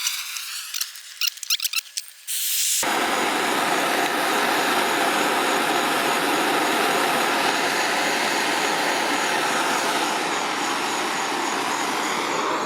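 A propane torch comes on about two seconds in and burns with a steady hiss, heating a copper pipe joint for soldering. Before it there are light high-pitched clicks and scraping.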